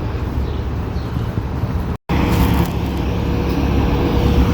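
Steady road traffic noise, cars and trucks passing, broken by a brief moment of silence about two seconds in; afterwards a faint steady hum sits over the traffic.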